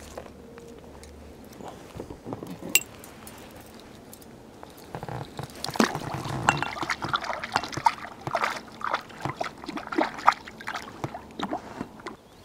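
A small pike splashing and thrashing at the water's surface beside a boat as it is hauled in on a hand line, with water sloshing and dripping. The splashing starts about five seconds in and goes on in quick irregular bursts until near the end.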